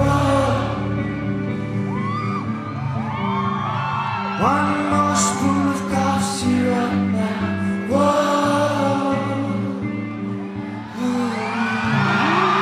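Live rock band playing the closing bars of a song, a male singer's voice sliding between long held notes over sustained chords. Near the end the crowd starts cheering and whooping as the music winds down.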